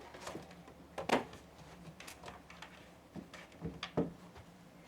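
Handling noises: a few light knocks and scrapes as objects are moved about on a surface. The loudest knock comes about a second in, and two more come near the end.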